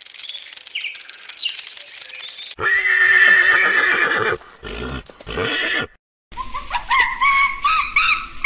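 Horse neighing: after a couple of seconds of hiss, several loud whinnies separated by abrupt cuts, the last a quavering call that wavers up and down in pitch.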